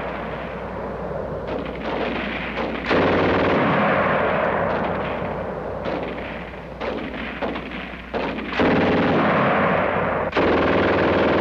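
Sustained battle gunfire on an old film soundtrack: rapid rifle and machine-gun shots running together with heavier blasts. It swells louder about three seconds in and again near the end, and the sound is dull, lacking its top end.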